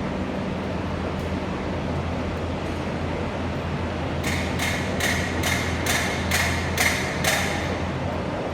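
Eight quick, evenly spaced hammer strikes, about two and a half a second, beginning about halfway through, over a steady low machine hum.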